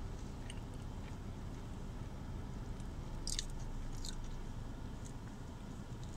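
A person chewing a mouthful of Big Mac close to the microphone. Several short, crisp crunches and wet mouth clicks come at uneven intervals over a steady low hum.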